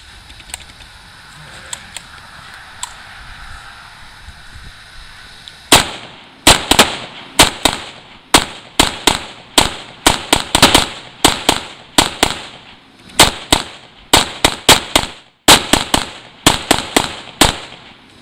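Semi-automatic rifle firing a long, rapid string of roughly thirty shots, beginning about six seconds in, mostly two to three shots a second with a few short pauses.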